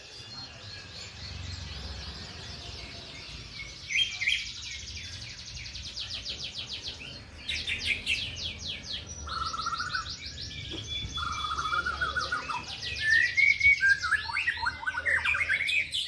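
Several caged domestic canaries singing at once: fast rolling trills and chirped phrases overlapping one another, with louder bursts about four seconds in and again near the end.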